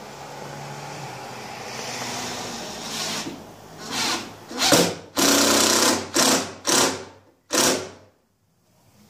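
Power drill driving a screw into the front of a shower niche's reveal: a low run, then about six short bursts of the motor before it stops.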